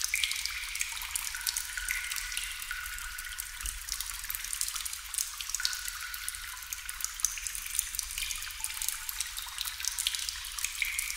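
Water drops falling steadily into water: a dense, continuous patter of small plinks, many of them ringing briefly as short notes at a few different pitches.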